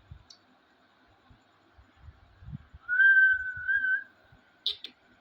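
One steady whistled note, a little over a second long with a slight waver, about three seconds in. Then a couple of short, sharp high sounds near the end.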